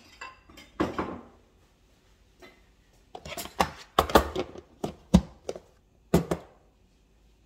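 Dishes and cooking utensils clattering as food is dished out onto plates: a string of sharp knocks with short ringing tails, one about a second in, a dense run in the middle and a couple more after it.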